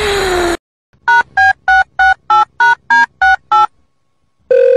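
A dog's brief falling whine cuts off in the first half second. Then nine quick two-tone telephone keypad beeps, about three a second, dial a number, and a steady phone tone begins near the end.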